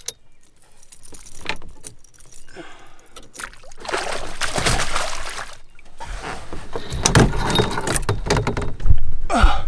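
A freshly caught largemouth bass thrashing in a landing net at the water's surface: rushes of splashing water with clicks and rattles from the net and tackle. A brief louder sound comes near the end.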